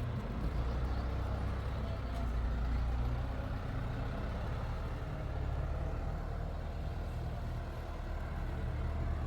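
A large engine running steadily with a low rumble.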